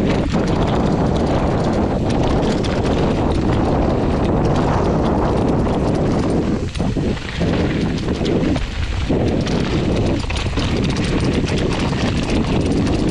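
Hardtail mountain bike rattling down a rough dirt and rock trail: a dense, steady clatter of knocks from the bike and tyres on stones and gravel, with a few brief lulls in the middle.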